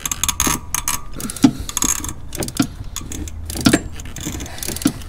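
Metal hand tools clicking and clinking irregularly, a socket and extension being worked down into a spark plug well.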